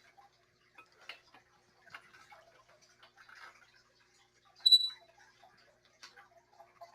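Air hose being coiled by hand: scattered faint clicks and rustles of the hose and its fittings, with one louder sharp clink that rings briefly about two-thirds of the way through.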